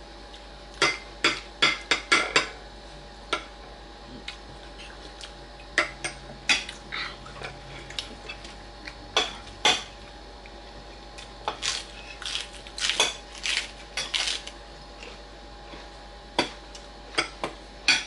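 Forks and spoons clinking against plates and ceramic bowls as people eat: scattered sharp clinks, some in quick clusters of several.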